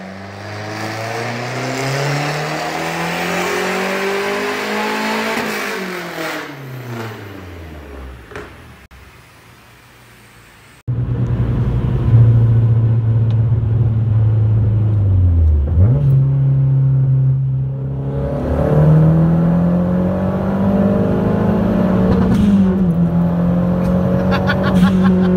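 Mazdaspeed3's turbocharged 2.3-litre four-cylinder making a dyno pull: the engine revs up steadily for about five seconds, then winds down and fades. After a sudden cut the same engine runs under load inside the car's cabin at highway speed, its note dipping briefly, then climbing and holding higher as it accelerates.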